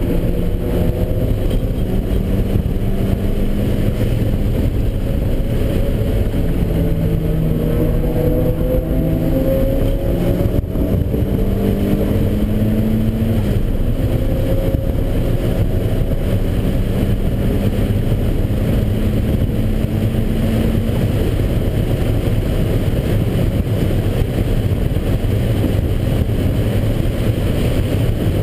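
Turbocharged Mazda Miata four-cylinder engine (GT2870 turbo at about 10 psi boost) heard from inside the cabin at full throttle, its pitch climbing through the gears with two upshifts in the first half, then holding steady. In the last several seconds the engine note is buried in road and wind noise.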